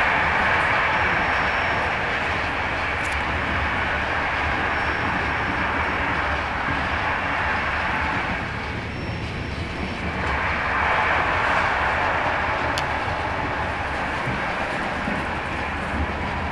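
Steady running noise of a moving passenger train inside a type 156A first-class carriage: a rushing hiss over a low rumble from the wheels and track. It eases off for a couple of seconds around the middle, then comes back.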